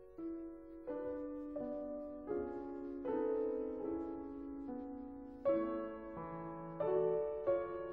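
Slow, gentle piano background music, a new note or chord struck about once a second and left to ring.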